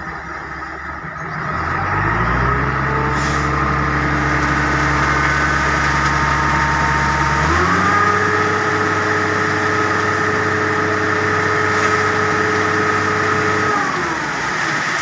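Heavy diesel engine revving up and holding at high revs, stepping up to a higher pitch about halfway through and dropping back near the end. Two brief hisses of air come through, early on and late.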